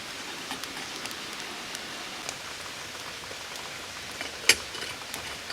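Wood fire crackling over a steady hiss, with scattered small snaps and one loud pop about four and a half seconds in.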